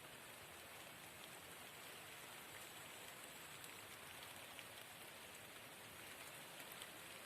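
Light rain falling: a faint, steady hiss with scattered small drop ticks.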